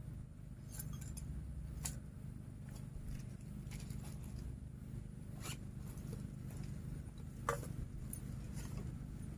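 Scattered light clicks and scrapes, about eight of them at irregular intervals, the loudest about seven and a half seconds in, over a low steady rumble.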